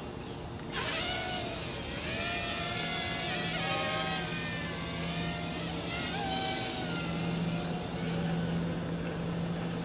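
WLToys V252 Pro mini quadcopter's motors and propellers starting up under a second in, then whirring steadily, their whine wavering up and down in pitch with throttle as it takes off and flies. Crickets chirp steadily underneath.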